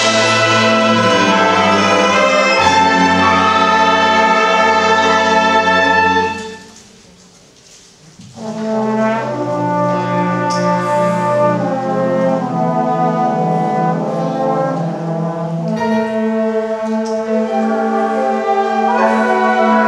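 Large brass ensemble playing long held chords. About a third of the way in the band cuts off, leaving a gap of about two seconds, then comes back in with sustained chords.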